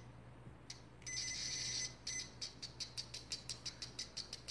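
Mastech M3900 multimeter's continuity buzzer beeping on its stock test probes. A short blip comes first, then a steady beep of nearly a second, then a fast stutter of short beeps at about seven a second. This is the scratchy, non-latching continuity tone that the reviewer blames on the poor stock probes.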